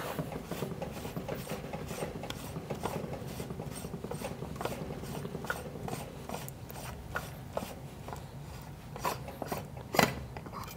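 Top burr assembly of a DF83 coffee grinder being twisted off by hand: a steady rubbing and scraping of its threads with many small irregular clicks, and a sharper knock about ten seconds in.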